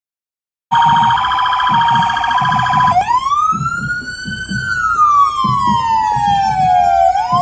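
Emergency vehicle siren, starting suddenly under a second in: a steady tone for about two seconds, then a wail that rises and slowly falls, beginning to rise again near the end.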